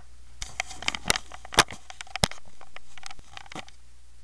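Handling noise on the camera itself: a run of irregular taps, knocks and rubbing as the wet lens is wiped, the two sharpest knocks about a second and a half and two seconds in.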